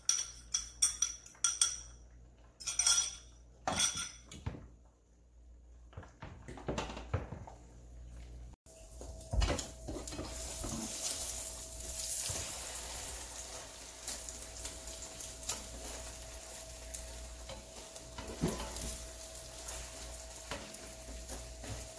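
A metal utensil clinks rapidly against a ceramic bowl, scraping out the last of the beaten egg into the frying pan. About nine seconds in, a steady sizzle of eggs frying in a nonstick pan takes over, with a spatula now and then scraping and sliding under the egg, over a faint steady hum.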